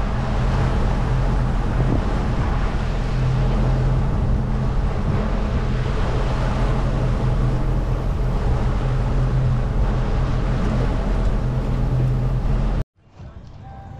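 Pontoon boat underway: its motor runs with a steady hum under broad wind and water noise. The sound cuts off suddenly about a second before the end, leaving something much quieter.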